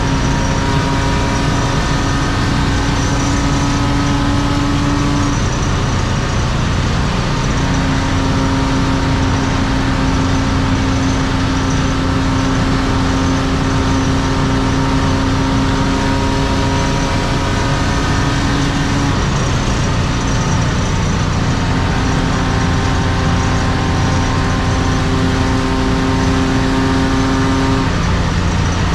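1993 BMW E36 325i's M50B25 straight-six with aftermarket headers and exhaust, heard from inside the cabin at sustained high speed: a steady engine drone over tyre and wind noise. The steady note breaks off briefly about six seconds in, again near twenty seconds, and once more near the end.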